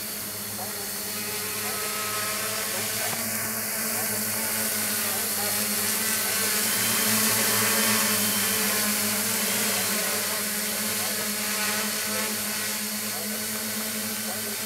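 Quadcopter's four brushless outrunner motors (RCMC 2826) spinning Gemfan 9x4.7 propellers in low flight: a steady buzzing hum of several layered pitches. It grows louder toward the middle as the craft comes close, then eases a little.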